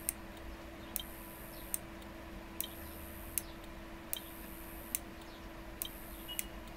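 Sharp single clicks, a little more than one a second, as the transmitter is keyed in CW (Morse) mode to drive the HF linear amplifier, over a faint steady hum.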